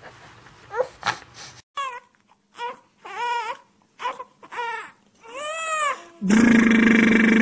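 A toddler's last sobs, then a newborn baby crying in short wails, about six in a row, each rising and falling in pitch. About six seconds in, a loud steady buzzing hum starts abruptly and is the loudest sound.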